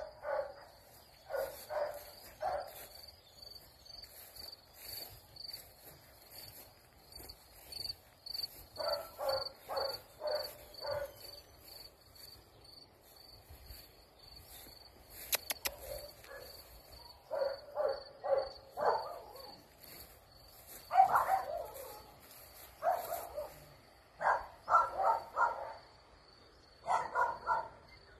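A dog barking in short volleys of three to five quick barks every few seconds, over steady high-pitched cricket chirping.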